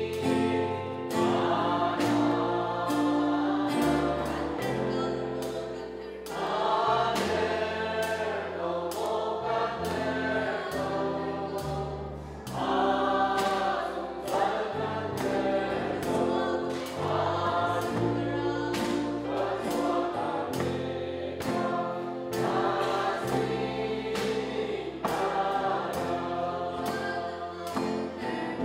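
A group singing a worship song, accompanied by a live band with a drum kit keeping a steady beat and guitar.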